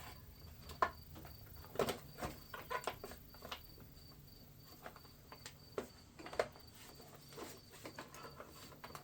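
Scattered light clicks and knocks of parts being handled, over a faint, evenly pulsing high-pitched tone.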